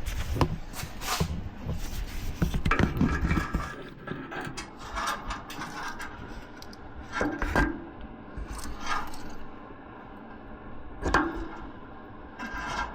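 Scattered knocks, clinks and scraping from metal parts being handled, with a few sharper knocks spread through.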